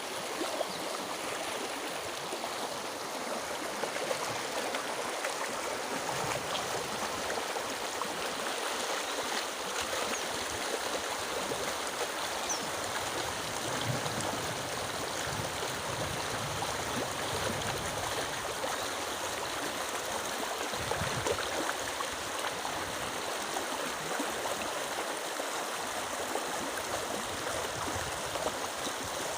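Flowing water of a stream rushing steadily.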